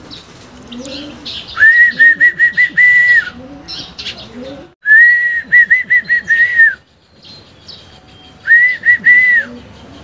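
A person whistling three times: each a held, high note with a quick warble, the middle one the longest. Pigeons coo faintly and small birds chirp in the background.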